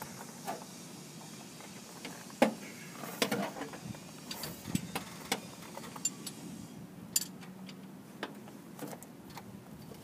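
Scattered metallic clinks, knocks and rustles of hands and a tool working at the starter in an air-cooled VW bus's rear engine bay, with one sharp knock about two and a half seconds in.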